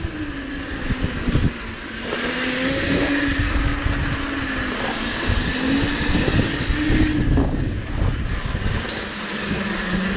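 Pit bike engines running at speed on track, their drone wavering up and down in pitch through the corners.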